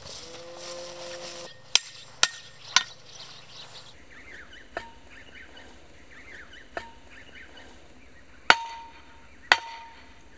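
Hammer blows driving a thin metal stake into the ground: sharp metallic hits, three in quick succession, then more spaced a second or two apart. The last ones ring briefly.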